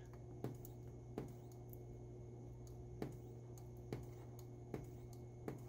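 Faint, sharp clicks of resistance tack welds firing from an Orion 150S pulse arc welder's dual-probe handpiece on 0.005-inch stainless steel foil. The welds fire automatically in touch-detect mode each time the electrode makes contact, about six times at uneven intervals of roughly a second, over a steady low hum.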